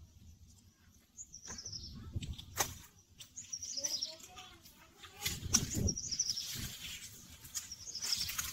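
Small birds chirping several times in short, falling high calls, over rustling and a few sharp snaps as corn leaves and husks are handled; the loudest moment is a burst of rustling and knocking about five and a half seconds in.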